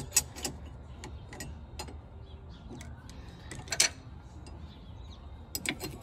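Small metal parts of a skid steer's hydraulic pilot joystick clicking and clinking as they are handled and seated by hand: the plungers, washers and metal base plate. The clicks are scattered, with a louder quick double click a little under four seconds in and a cluster of clicks near the end.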